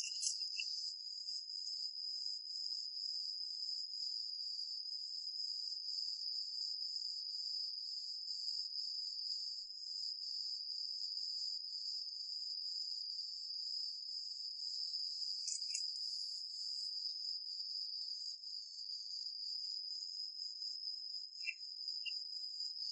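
Night insects trilling in a steady, continuous high-pitched chorus, with a few faint clicks here and there.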